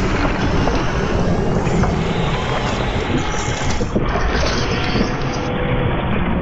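Steampunk-style machine sound effects: a dense, steady mechanical churning rumble with scattered clicks and clanks, changing character about 3, 4 and 5.5 seconds in as one machine sound gives way to the next.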